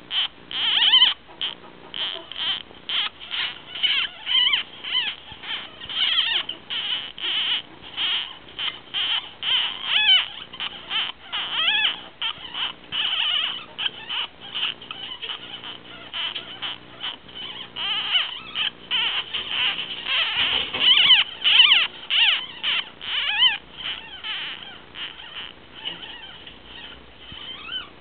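Twelve-day-old ferret kit squeaking over and over in short, high-pitched cries, several a second, some wavering in pitch, louder around the middle and again near the end.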